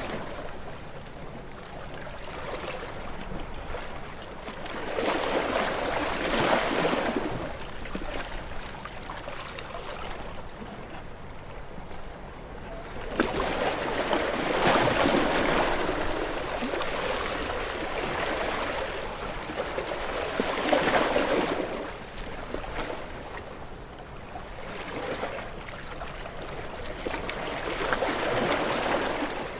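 Ocean waves breaking on a rocky shore, in repeated surges of rushing surf and wash that rise and fall every several seconds.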